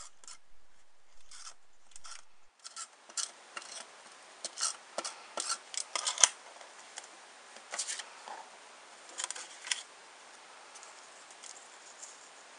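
An adhesive tape runner drawn across the back of a paper-cut web in short, sharp, irregularly spaced strokes, which stop well before the end.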